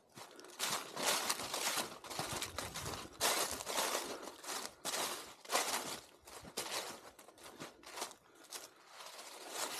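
Footsteps crunching through dry fallen leaves at a steady walking pace, about two steps a second.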